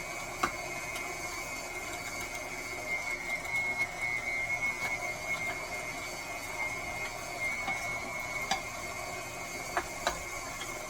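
KitchenAid stand mixer running with its metal food grinder attachment, a steady motor whine, as ground lamb with onion and garlic is pressed through it. A few light knocks sound through it.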